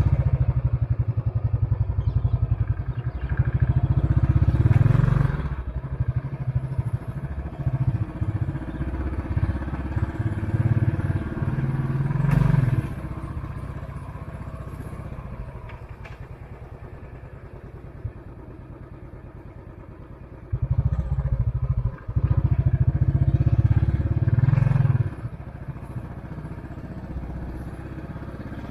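Royal Enfield Classic 500's single-cylinder engine running under way. The exhaust beat grows louder under throttle near the start, briefly around the middle and again for a few seconds late on, and drops back quieter in between.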